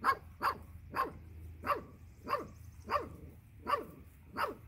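A dog barking repeatedly and evenly, about eight short barks at a little under two a second.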